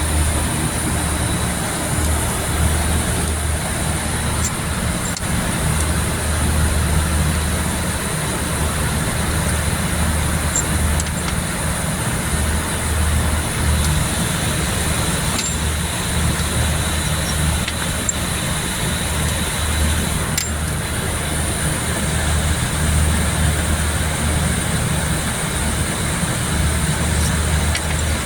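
A steady low mechanical hum that pulses unevenly, over a constant noisy background, with a few faint clicks.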